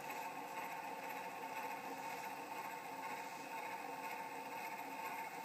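Rebuilt spring motor of an Opera cylinder phonograph running steadily on the bench, its gears and spinning governor making an even mechanical whir with a few steady tones.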